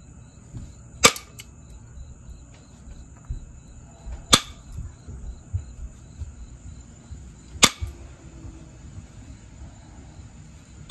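Copper-tipped pressure flaker pressing flakes off the edge of a jasper preform: three sharp snaps about three seconds apart, each one a flake popping off the stone.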